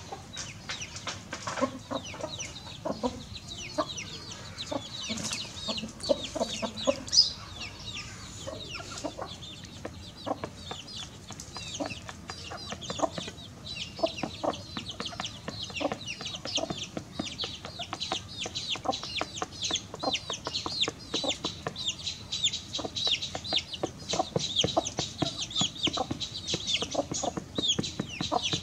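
Hen clucking repeatedly in low notes while chicks peep constantly in short, high, falling notes, the peeping growing denser after the middle.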